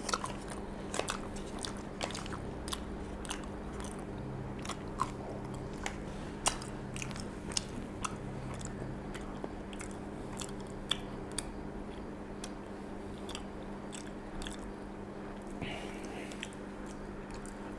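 A man chewing mouthfuls of baked macaroni cheese close to the microphone: wet mouth sounds and scattered small clicks, over a steady low hum.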